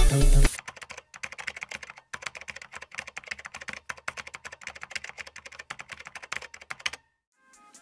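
A rapid, irregular run of light clicks and taps, several a second, that stops abruptly about seven seconds in.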